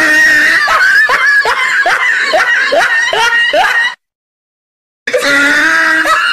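Edited-in comedy sound effect of high-pitched, sped-up laughter in quick repeated bursts, about two to three a second. It cuts out abruptly for about a second in the middle and then starts again.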